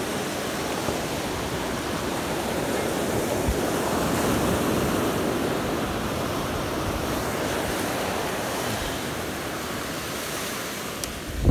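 Ocean surf breaking and washing up the beach: a steady rush that swells about four seconds in and eases off toward the end.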